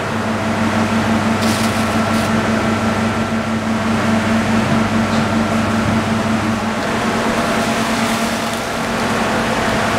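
A steady machine hum over a constant background rush. The lower part of the hum drops away about two-thirds of the way through, and two light knocks come about one and a half and two seconds in.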